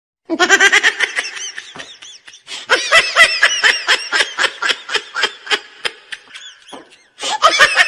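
High-pitched laughter in three runs of quick, pulsing giggles, the middle run the longest.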